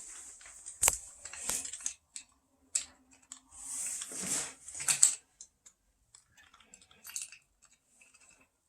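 Small metal parts clinking and scraping as closet anchor bolts are handled and slid into the slots of a toilet floor flange. There are sharp clicks in the first few seconds, a scrape about four seconds in, and then only faint ticks.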